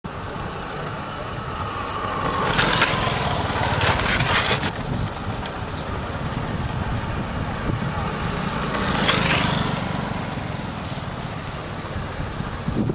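Small motor scooters riding along, their engine sound swelling twice, about three and nine seconds in, over a steady low rumble of wind on the microphone.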